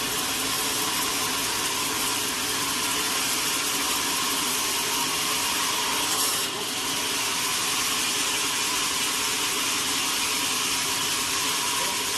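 Sawmill machinery running steadily, a loud even mechanical hiss and hum, with a brief change in the sound about six seconds in.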